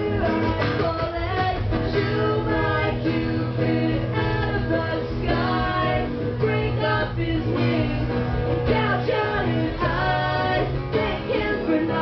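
Live acoustic rock music: acoustic guitar playing with a woman's voice singing.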